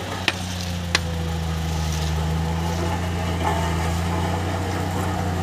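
Escort road roller's diesel engine running steadily as the roller rolls over a gravel sub-base bed. Two sharp clicks come within the first second.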